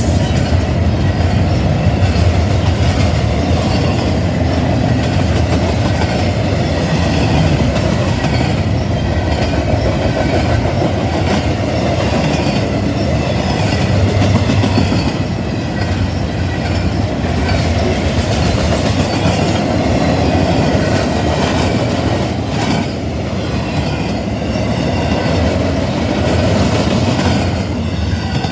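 Double-stack intermodal freight train passing close by: loud, steady rolling of the well cars' wheels on the rails, with occasional clicks. The sound starts to fade at the very end as the last car goes by.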